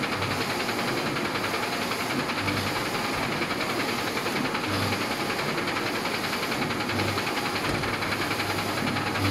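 A 60 cm DTF film printer with four I3200 print heads running while it prints, its carriage shuttling across the film with a steady mechanical whir and rattle, and a low thump about every two seconds.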